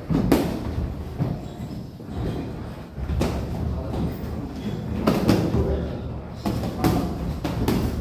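Boxing gloves landing on gloves and headgear during sparring: a string of sharp slaps, some in quick pairs, every second or two.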